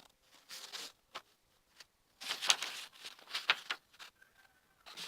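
A sheet of A4 paper being folded in half and creased by hand: a few short rustles and scrapes with quiet gaps between.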